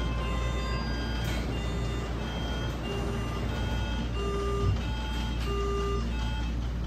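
Soft background melody of short held electronic notes, changing pitch every half second or so, over a steady low hum.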